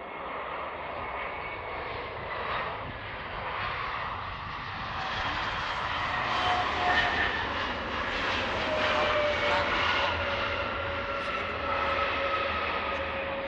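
Embraer E175 twin jet, with General Electric CF34 turbofans, landing: a steady jet engine whine with rushing noise that grows louder from about the middle, as it touches down and rolls out, with one whine slowly falling in pitch.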